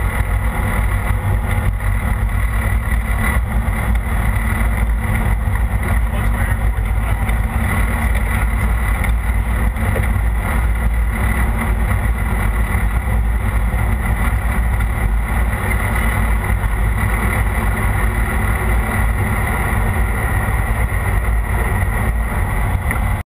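Light single-engine propeller plane's engine and propeller running at a steady low power while taxiing, heard from inside the cockpit.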